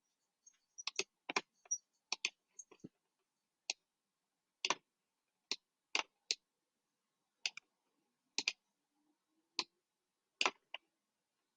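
Computer mouse clicking: irregular single clicks and quick pairs, a second or so apart.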